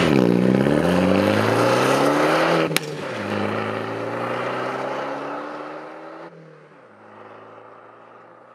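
Car engine accelerating hard with rising revs. About three seconds in there is a sharp click and the pitch drops at a gear change, then it climbs again. A further drop comes a little past halfway, and the sound grows fainter toward the end.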